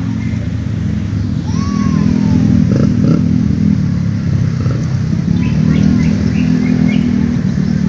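An engine running steadily with a low hum, a little louder from about a second and a half in, with a few faint higher calls over it.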